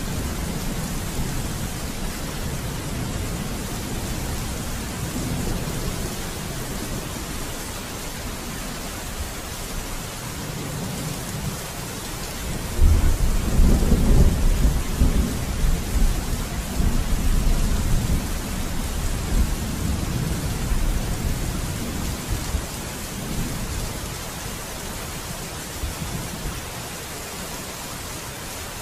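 Steady rain, with a low roll of thunder breaking in about 13 seconds in and rumbling away over several seconds.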